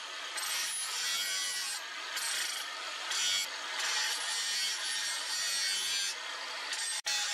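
Angle grinder's abrasive disc grinding the steel edge of a leaf-spring machete blade: a rough, high rasping that swells and dips as the disc works along the blade, cutting out briefly just before the end.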